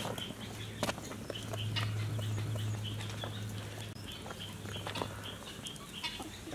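Outdoor ambience: small birds chirping over and over above a low steady hum that stops about five seconds in, with a few scattered clicks.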